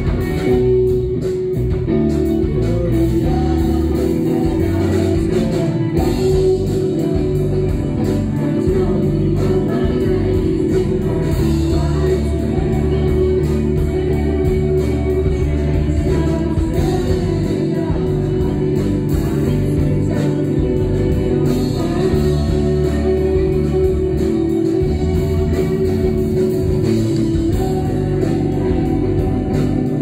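Amateur rock band playing live: electric guitars, bass guitar and drum kit, with a singer's voice over them.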